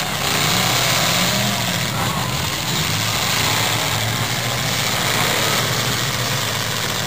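Engines of several demolition derby cars running and revving together in a steady, dense din.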